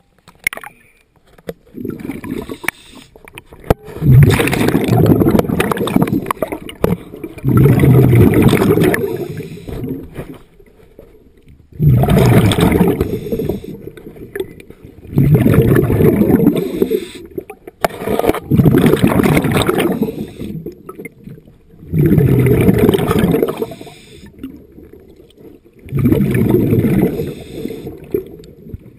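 A diver's exhaled breath bubbling out underwater: seven gurgling bursts of about two seconds each, one every three to four seconds, with quiet gaps between.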